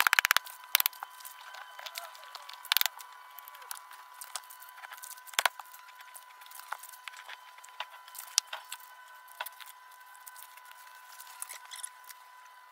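Scattered knocks, clicks and scrapes of debris being pulled out and set down by hand in a freshly sawn opening in a concrete foundation wall, with a quick rattle right at the start and louder knocks about three and five and a half seconds in. A faint steady high tone runs underneath.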